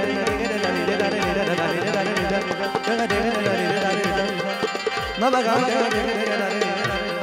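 Harmonium with tabla accompaniment in a classical or folk style. The tabla's bass drum strokes bend downward in pitch about twice a second.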